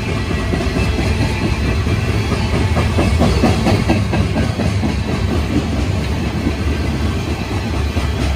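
CSX coal freight train rolling past with a steady low rumble, its wheels clicking over rail joints in a run of clacks about halfway through.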